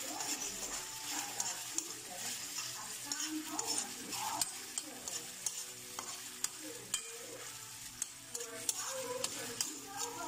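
Metal spoon stirring jungle snails in their shells around an aluminium wok, with frequent clicks and scrapes against the pan over a frying sizzle.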